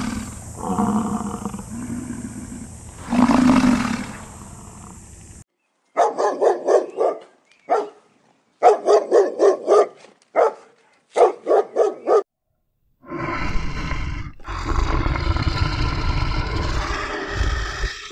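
A series of different animal calls: a deep roar over the first few seconds, then three bursts of short, rapid calls repeated several times a second, then a longer harsh, noisy call near the end.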